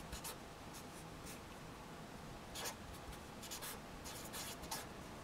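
Felt-tip marker writing on paper: faint, short scratchy strokes in irregular clusters, busiest in the second half.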